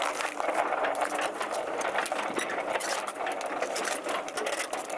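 Steel crawler tracks of a heavy tracked machine clanking and rattling steadily over its engine's running, as the tracks roll across a pack of LiFePO4 battery cells in a crush test.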